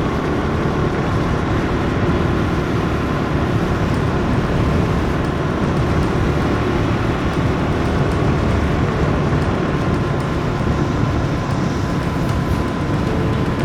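Motorcycle running steadily at cruising speed, with engine and road noise under a heavy rush of wind on the microphone.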